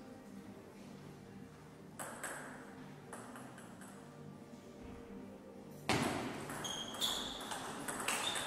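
Table tennis ball: a few light taps about two seconds in, then from about six seconds a fast rally of sharp clicks as the celluloid-plastic ball strikes rubber bats and the DONIC table, several hits a second.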